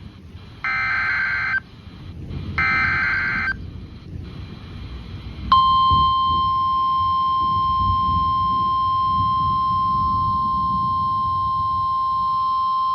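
Emergency Alert System signal on NOAA Weather Radio: the last two of three buzzy one-second SAME header data bursts, then a few seconds in the steady 1050 Hz warning alarm tone starts and holds. It marks a severe thunderstorm warning being issued, with a low hiss of radio noise underneath.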